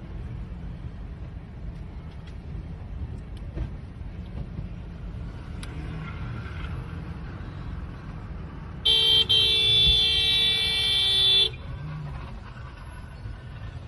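Car driving with a steady low road and engine rumble heard from inside the cabin. About nine seconds in, a car horn blares loudly for about two and a half seconds, with a brief break just after it starts.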